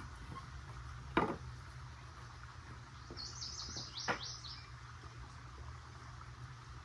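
A small bird chirping: a quick run of about eight short, high, falling notes around the middle. A single sharp knock sounds about a second in, and another click comes during the chirps.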